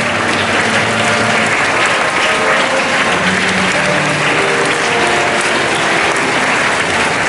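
A large crowd applauding steadily, with faint instrumental music under the clapping.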